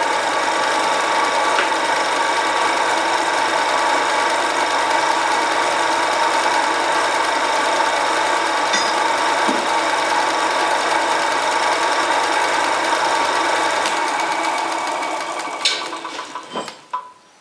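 Home-built metal lathe with a 1 hp single-phase motor running steadily while a twist drill in the tailstock bores into the workpiece, a steady hum with a whine. About fourteen seconds in the motor is switched off and the chuck coasts down, with a few sharp clicks as it stops.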